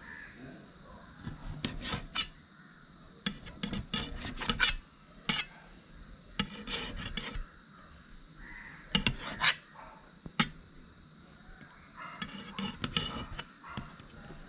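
Knife cutting raw chicken into small pieces on a stainless steel plate: irregular bunches of short scraping, clicking strokes as the blade goes through the meat and meets the metal.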